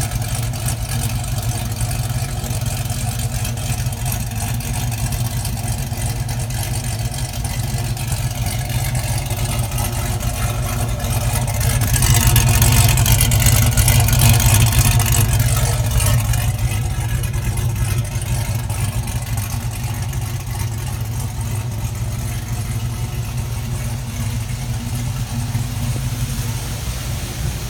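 A swapped-in LS3 6.2-litre V8 with an aftermarket cam (206/216 duration, .553 lift, 117+4 lobe separation) running steadily at low speed. It grows louder and brighter for about four seconds in the middle, then settles back.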